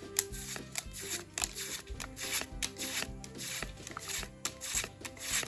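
Background music over the repeated quick slides and flicks of trading cards being flipped through by hand, one card moved at a time.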